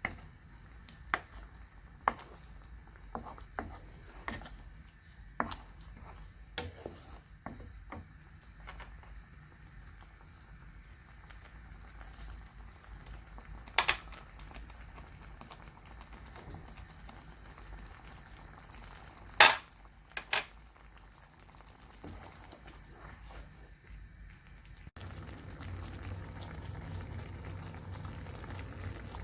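Food frying in a pan, with scattered clinks and knocks of a utensil against the pan; two knocks stand out as the loudest. Near the end the sound changes suddenly to a steadier low hum.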